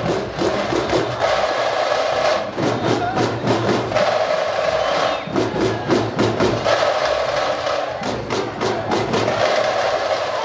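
Tamate frame drums beaten with sticks in a fast, dense rhythm.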